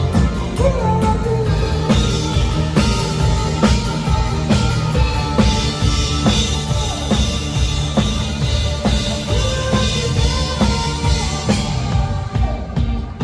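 Rock band playing live at a sound check: a drum kit driving steadily under bass and a bending lead melody line, thinning out near the end.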